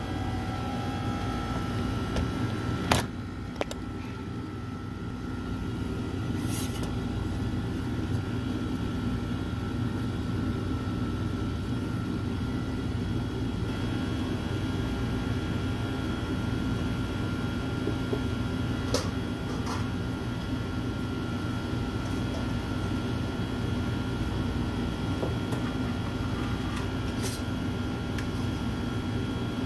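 Steady hum of commercial bakery equipment, fans and refrigeration, with several constant low tones. A few sharp clicks and knocks stand out, the loudest about three seconds in.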